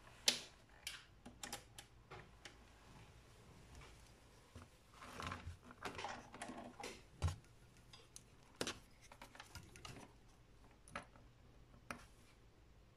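Handling noise from test-lead probes and their cords being picked up and set against a small circuit board on a workbench: scattered sharp clicks and taps, the loudest just after the start, with a stretch of rustling about halfway through and a dull knock soon after.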